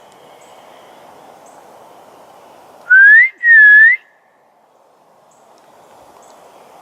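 A person whistling two notes, loud and close: a rising note, then one that dips and rises again, about three seconds in.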